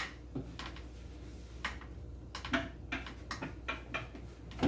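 Scattered light clicks and knocks of items being handled and set down in a kitchen cupboard, a few early on and more frequent in the second half.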